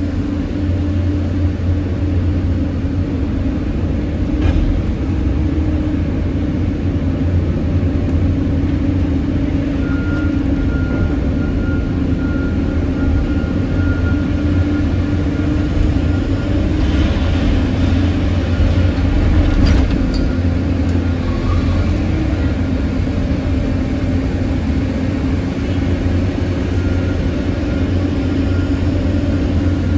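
Caterpillar 320D excavator's diesel engine running steadily while the machine digs and swings buckets of soil, heard from inside the cab. A faint high whine comes in for several seconds about a third of the way through, and a few sharp knocks come about two-thirds in.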